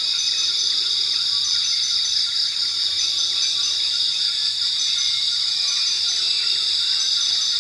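Forest ambience dominated by a steady, high-pitched chorus of insects, with faint short bird chirps scattered through it.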